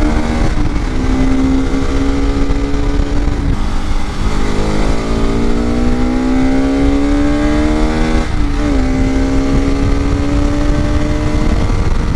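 Motorcycle engine pulling under way, its pitch climbing steadily and dropping twice at gear changes, about three and a half and eight seconds in.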